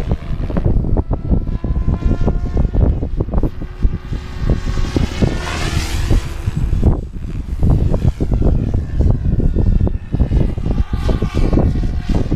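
SAB Goblin 570 electric radio-controlled helicopter flying, its motor and rotor whine rising and falling in pitch as it manoeuvres, with one close pass sweeping up and down about halfway through. Heavy wind buffets the microphone throughout.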